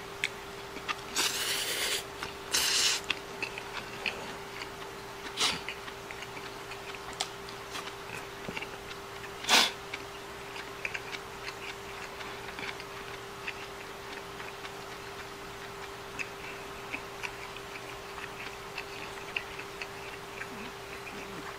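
A person eating stir-fry and rice with chopsticks: many light ticks of chopsticks on a wooden plate and a rice bowl, with quiet chewing. There are two short noisy bursts in the first three seconds and a sharper knock about ten seconds in, over a steady low hum.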